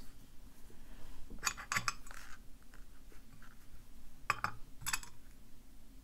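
Faint clicks and light metallic clinks of small padlock parts being handled: a few in quick succession a second and a half in, then two more single clicks near the end.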